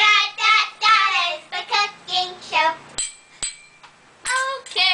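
Children singing a short sung intro, the voice held and sliding on each note, broken about three seconds in by two sharp clicks half a second apart, then singing again near the end.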